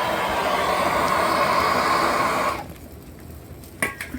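Plumber's handheld gas torch burning with a steady hiss while sweating a copper pipe joint, shut off abruptly about two and a half seconds in. Two light clicks follow near the end.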